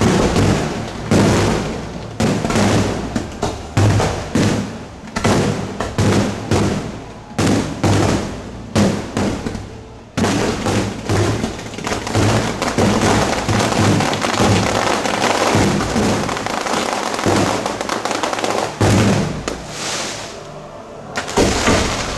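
Aerial fireworks display: shells bursting one after another in quick succession, a bang roughly every half second, turning into a dense, continuous barrage from about halfway through and thinning out near the end.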